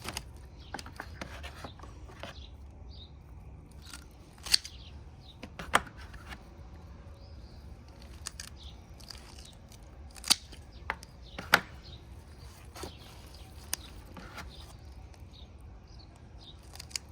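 Scissors snipping the fins off a striped bass: a handful of sharp snips at irregular intervals over a low steady hum.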